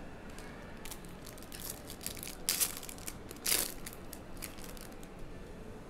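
Crinkling and rustling of trading-card packaging and cards being handled, in a few short crackles; the two loudest come about two and a half and three and a half seconds in.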